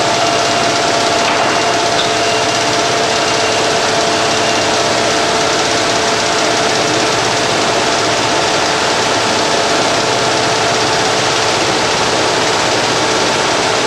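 GM-550 straight-line cartoning machine with carton pre-folding running steadily: a loud, even mechanical whirr with a few faint steady tones.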